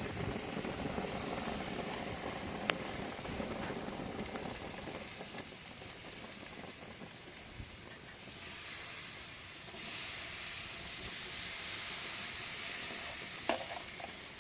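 Sauce-brushed chicken and shrimp sizzling on a hot grill: a steady hiss that turns louder and brighter for about five seconds in the second half, with a single sharp click about three seconds in.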